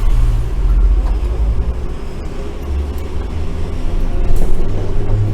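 Randen tram running along its line, heard from inside the car: a continuous low rumble from the motors and the wheels on the rails that swells and eases.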